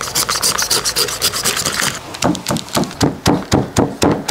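A large knife shaving the skin off a whole tender jackfruit in rasping strokes that scrape along the fruit, about four a second, in the second half. They follow a faster, finer crackle of scraping in the first two seconds.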